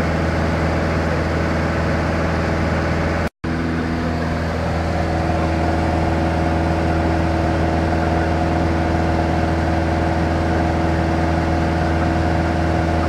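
Light touring aircraft's engine and propeller droning steadily, heard from inside the cabin in flight, with a split-second break in the sound about three seconds in.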